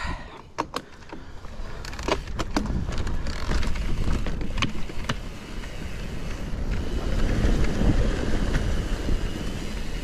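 Wind buffeting the microphone over the tyre rumble of a mountain bike riding downhill, with sharp clicks and rattles from the bike in the first few seconds as it rolls over roots. The rumble grows louder as the bike picks up speed on the rock slab.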